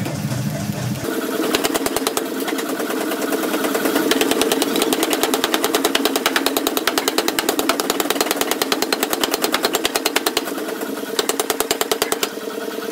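Power forging hammer running and pounding a red-hot steel billet for a truck axle spindle: a fast, even knocking with a steady machine hum, starting about a second in.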